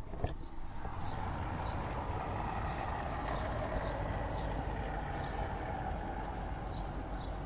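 Steady city street traffic noise, with a small bird repeating short, high, falling chirps over it about once or twice a second.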